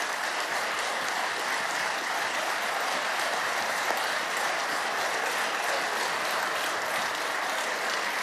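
Dense, steady applause from a large crowd of members of parliament clapping.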